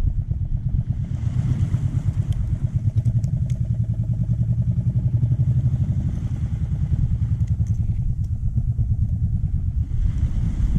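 Engine of a motorized bangka running steadily, with a fast, even pulse.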